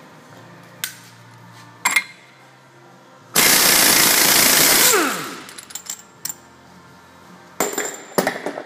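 Impact wrench hammering on the 32 mm front axle nut for about a second and a half, then winding down with a falling whine. A few sharp metal clicks come before it and a cluster of knocks near the end.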